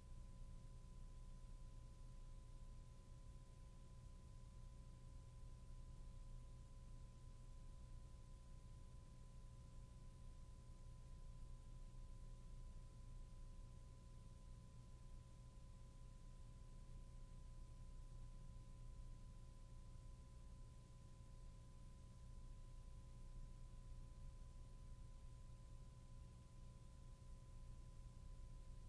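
Near silence: a faint steady hum and hiss, with two thin steady tones.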